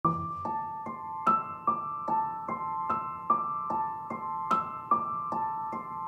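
Background music: a piano-like keyboard playing a repeating figure of single notes, about two or three a second, each note ringing out and fading.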